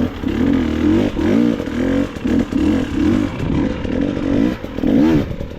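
Enduro dirt bike engine revving in repeated short throttle bursts, its pitch rising and falling about once a second.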